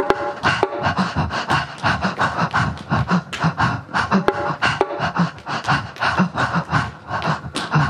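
Rhythmic breath sounds made with the mouth: quick, sharp panting breaths several times a second over a low pulse about twice a second, kept in a steady beat.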